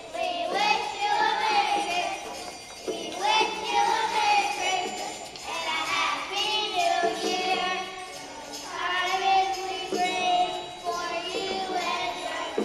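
Children's choir singing a Christmas song with a violin and jingle bells, in phrases a second or two long.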